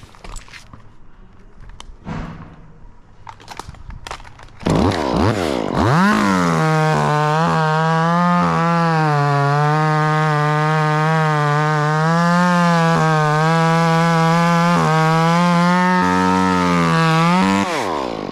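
Chainsaw engine revved up after a few seconds of faint rustling. It is held at high, fairly steady speed with slight dips in pitch for about twelve seconds, then throttled back and dies away near the end.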